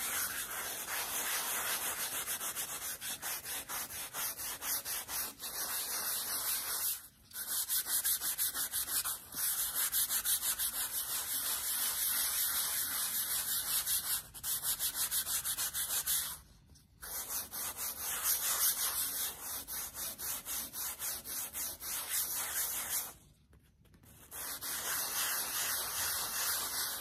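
An Annie Sloan sanding pad scrubbing over water-based chalk paint wetted with water, in fast back-and-forth strokes that wear the paint back to distress it. The rubbing stops briefly three times.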